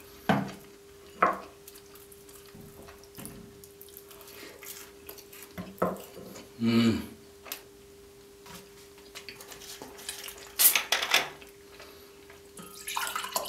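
Mukbang table sounds: scattered sharp clicks and knocks from handling a plastic ketchup squeeze bottle and a ceramic dipping bowl, with a louder clatter near the end, over a faint steady hum.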